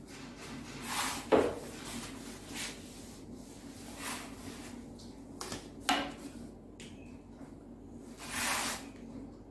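A hand-held duster wiping marker writing off a whiteboard in a series of short rubbing swipes, about seven strokes with gaps between them. The longest swipe comes near the end.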